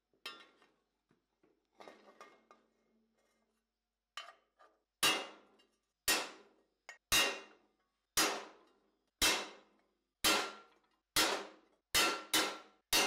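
Hammer blows on a steel tool held against a sheet-steel face mask: sharp metallic strikes about one a second starting about five seconds in, each ringing briefly, with two quicker ones near the end. Before them, faint clinks of the steel being handled.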